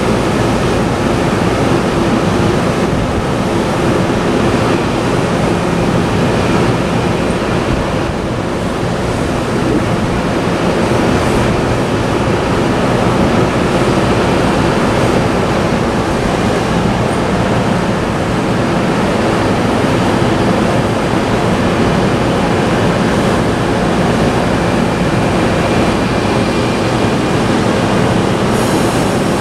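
Steady rushing of wind and rain, with the low steady hum of a MARC bilevel commuter train standing at the platform beneath it.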